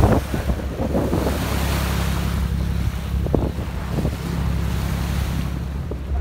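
Passenger launch's engine droning steadily, with wind and water rushing past the boat and wind buffeting the microphone.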